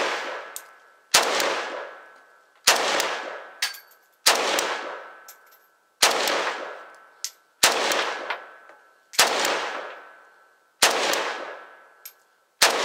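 Norinco MAK-90, a semi-automatic 7.62×39 mm AK-type rifle, fired in slow aimed single shots, eight of them about one every second and a half, each with a long echoing tail. A few short faint clicks fall between some of the shots.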